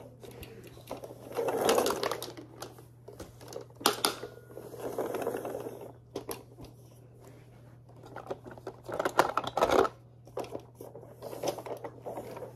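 Hard plastic toys being handled and pushed together: a rattling, scraping clatter in several bursts, with a few sharp clicks about four seconds in.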